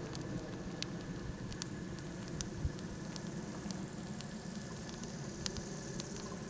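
Small open wood fire of twigs and pine cones crackling, with scattered sharp pops over a steady low rush.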